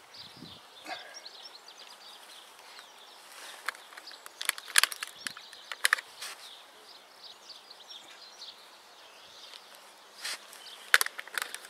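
Hands planting lettuce seedlings into stony soil: scattered scrapes and clicks of fingers digging and firming the gritty earth and pulling plugs from a plastic module tray, the loudest about five seconds in and near the end. Faint outdoor background with distant birdsong.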